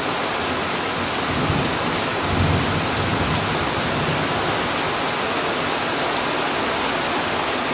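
Heavy rain falling steadily in a thunderstorm, with a low rumble of thunder from about a second and a half to three and a half seconds in.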